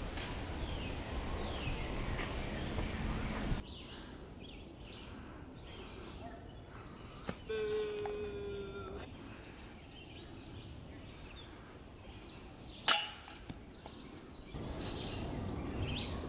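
Woodland ambience with birds chirping, a brief steady tone about eight seconds in, and a single sharp knock about thirteen seconds in.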